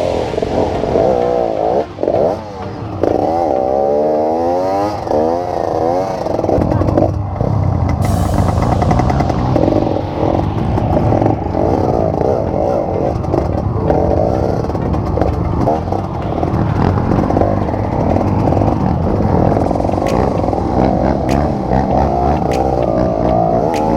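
Dirt-bike engines revving hard under load on a steep hill climb. The pitch rises and falls quickly over the first several seconds, then settles into a steadier, heavier engine sound.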